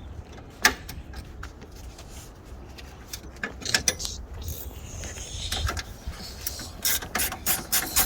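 Hand tools clicking and clattering: sharp metallic clicks over a low rumble, with one loud knock under a second in and quicker runs of clicks near the middle and near the end.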